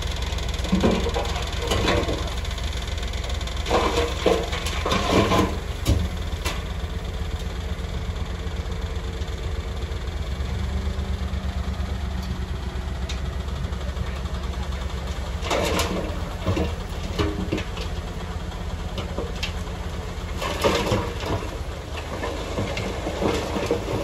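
Heavy diesel engine of a bulldozer running steadily, with four short bursts of clanking and rattling over it.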